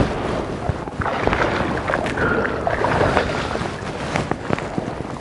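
Water splashing beside a plastic fishing kayak as a hooked largemouth bass is brought to a landing net, with sharp knocks of gear against the hull and wind on the microphone.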